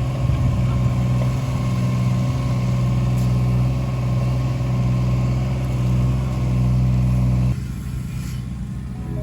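Engine running steadily with an even hum that stops abruptly about seven and a half seconds in.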